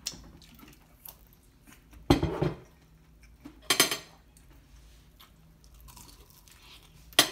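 Eating crispy breaded fried chicken at a table: soft crunching as the chicken is torn and bitten, broken by three sharp clatters of plate and cutlery.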